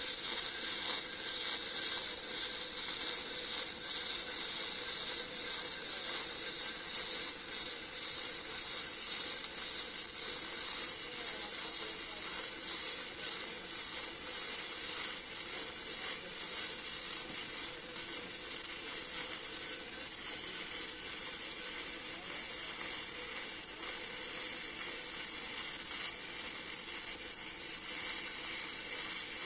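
Electric arc welding: the arc's steady high hiss with a fine crackle running throughout.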